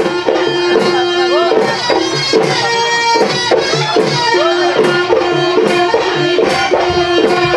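Deori Bihu (Bisu) folk dance music: a steady beat of drum strikes a little more than once a second under a bending melodic line and a held tone.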